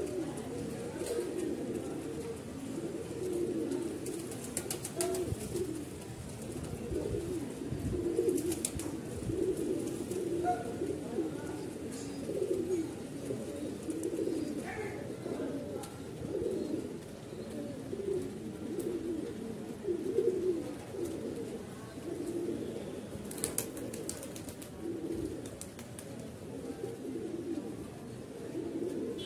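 Domestic pigeons cooing continuously, their low coos overlapping into an unbroken murmur.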